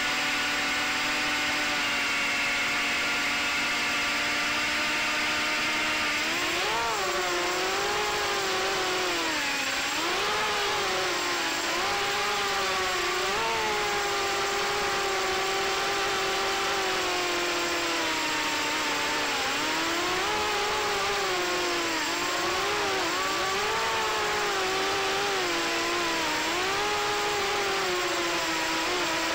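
FPV racing quadcopter's electric motors and propellers, recorded by the camera on the drone. They spin at a steady idle for about six seconds, then rise in pitch at takeoff and keep swooping up and down with the throttle during low flight.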